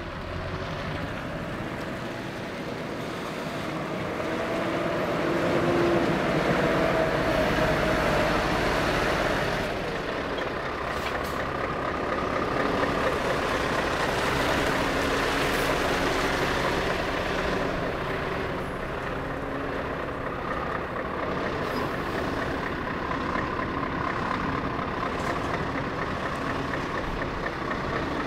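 Scania R 650 V8 truck pulling a lowboy trailer, its engine running at low speed while it manoeuvres on a wet road, with tyre noise. The sound swells a few seconds in and then settles.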